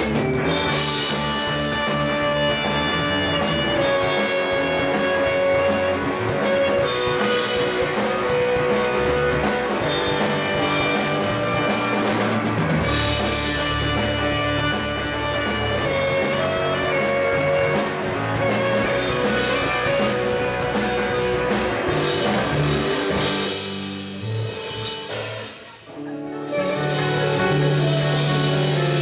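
A rock band playing live, electric guitar over a drum kit; the music thins out and dips briefly near the end, then comes back in full.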